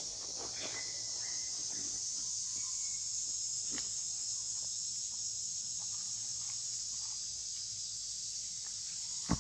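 Steady high-pitched drone of insects in the surrounding forest, with a couple of faint clicks and one sharper click near the end.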